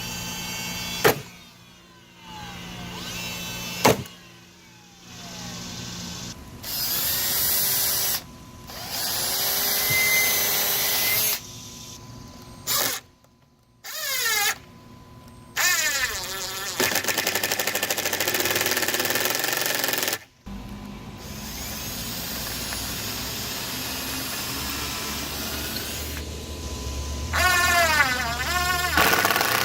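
Power tools at work in quick successive bursts: a drill/driver whining as it speeds up and slows down, with stretches of steady motor noise. Two sharp bangs come about a second in and again about four seconds in.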